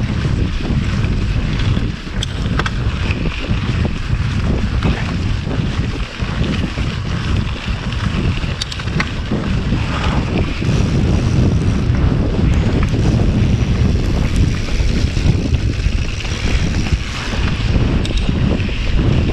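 Wind buffeting the GoPro's microphone on a mountain bike ridden along a dirt trail, a constant loud low rumble. Tyre noise on the dirt and scattered sharp clicks and rattles from the bike come through the rumble.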